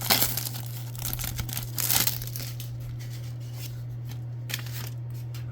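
Wrapper of a trading-card pack being torn open and crinkled by hand, with sharp tearing rustles at the start and again about two seconds in, then quieter handling. A steady low electrical hum runs underneath.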